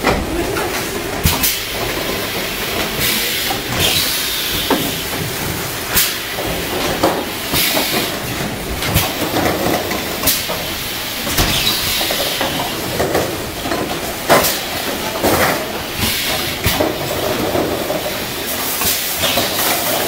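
Automatic piston filling line running: a steady mechanical din with irregular sharp clacks and short hisses every second or so.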